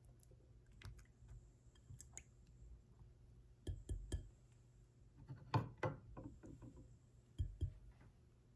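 Strawberries being set into a glass bowl of water by hand: soft, scattered knocks and clinks against the glass, with the loudest cluster a little past halfway.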